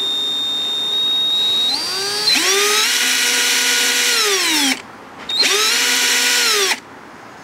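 Opened 14.4-volt cordless drill run on about 26 volts through its own variable-speed trigger switch: a steady high-pitched whine that steps up slightly, then the motor spins up, runs about two seconds and winds down, then runs again for about a second and a half and winds down. The over-voltage gives "some funny noises".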